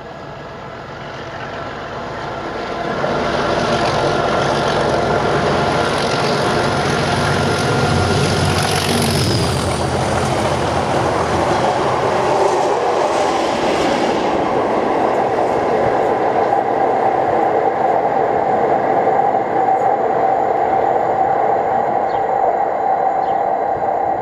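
Two Class 37 diesel locomotives, 37609 and 37611, working a Network Rail test train past at speed: engine and wheel-on-rail noise. It grows louder over the first three seconds, then stays steady and loud, with a tone that drops in pitch about nine seconds in.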